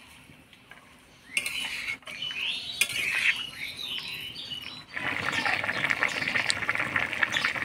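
Metal utensil clinking and scraping in a cooking pot, then from about five seconds in a steady bubbling hiss with fine crackles: the vegetable curry's gravy coming to the boil.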